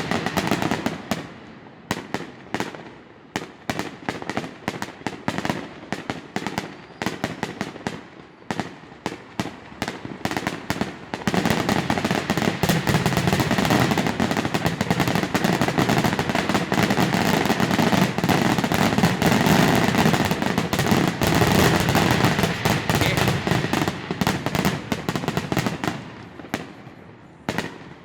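Fireworks grand finale: a rapid string of bangs, building about eleven seconds in into a near-continuous barrage of bangs and crackle, with deep booms felt in the chest. It thins out and fades near the end.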